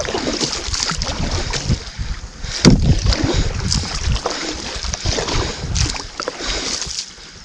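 Canoe paddle strokes splashing and pulling through the water in quick, irregular succession, the loudest splash about two and a half seconds in, with wind rumbling on the microphone.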